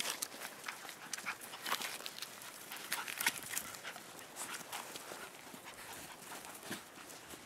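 Kai Ken puppies scuffling and pawing about on dry straw and dirt: scattered rustling and scratching.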